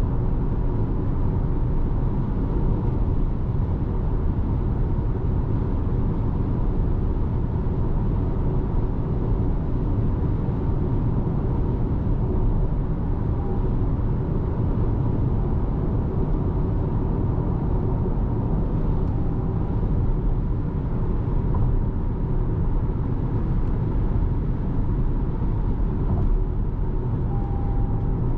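Steady road and tyre noise from a 2026 Toyota RAV4 Hybrid on the move, heard inside the cabin: a deep, even rumble with a faint constant hum and no changes.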